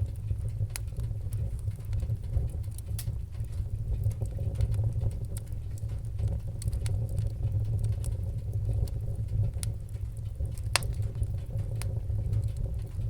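Fireplace fire crackling: scattered sharp pops and snaps over a steady low rumble, with one louder pop late on.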